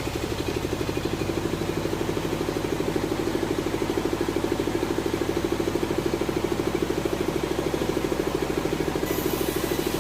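An engine running steadily at an even speed, with a fast, regular pulsing beat and no change in load.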